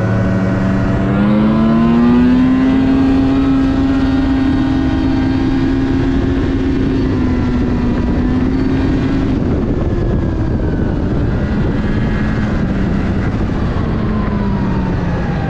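Yamaha SXR 700 snowmobile's three-cylinder two-stroke engine pulling under throttle: the pitch climbs over the first two seconds, then holds at a steady high rev, easing down a little about ten seconds in and again near the end.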